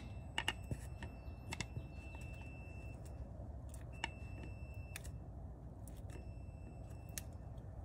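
A multimeter's continuity beeper sounds a thin high tone in three stretches of a second or two, cutting in and out as the output speed sensor signal wire is worked with a screwdriver, with light metallic clicks between. The beep means the signal wire is shorted to ground, an intermittent short that pulls the sensor circuit down (the P0720 fault).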